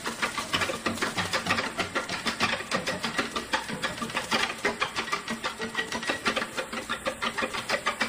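Hooves of a springbok herd clattering on stony ground: a dense, rapid run of sharp clicks and knocks that keeps going without a break.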